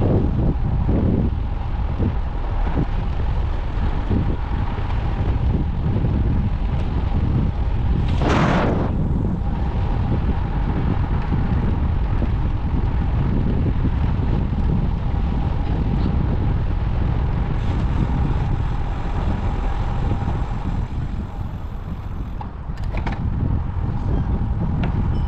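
Wind buffeting an action camera's microphone during a bike ride, a steady dense rumble, with a brief louder whoosh about eight seconds in.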